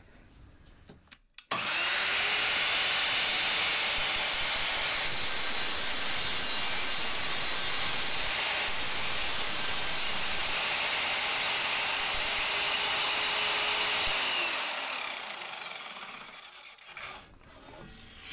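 Evolution R185SMS sliding mitre saw starting suddenly about a second and a half in, its multi-material blade running steadily and cutting through a 2x4 with nails in. The motor then stops and the blade winds down over a couple of seconds, followed by a light knock or two.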